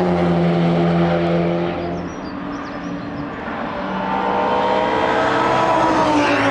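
Race cars passing at speed: one pulls away at the start with its engine note falling in pitch, the sound eases for a moment, then another car approaches and passes near the end with a drop in pitch.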